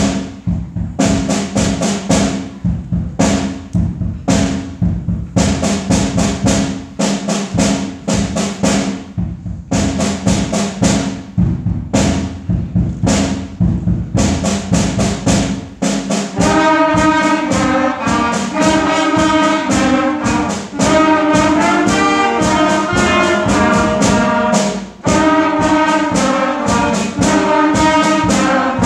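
Middle school concert band playing a march, woodwinds and brass over drums. It starts with sustained low chords under a steady drum beat and grows louder and fuller about halfway through as the melody comes in.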